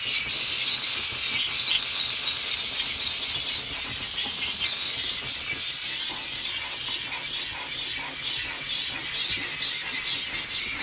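Handheld steam cleaner hissing steadily as its scrubbing-brush tip works the vinyl, the hiss pulsing evenly through the first half.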